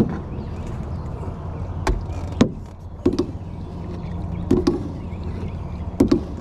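About half a dozen irregular knocks and bumps on the hull of a small aluminium jon boat, several with a short hollow ring, over a steady low rumble.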